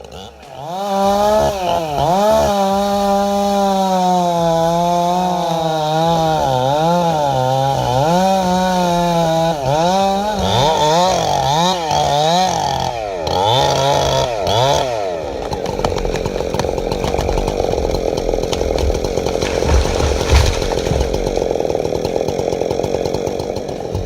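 Two-stroke chainsaw cutting into a dead cedar trunk, its engine pitch dipping as the chain bogs in the wood and climbing back again and again. About fifteen seconds in, the engine tone gives way to a loud, steady rushing noise.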